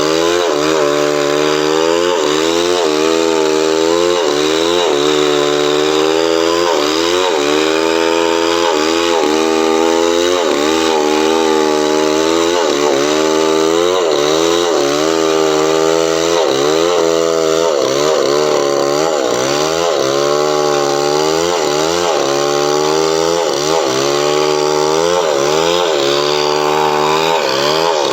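Chainsaw running at high revs while cutting coconut wood, the engine pitch dipping and recovering about once a second as the chain loads up in the cut.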